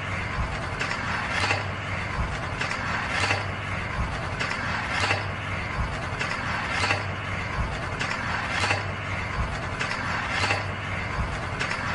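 Skateboard trucks grinding along a metal handrail: a steady scrape, with a regular knock about every second or two.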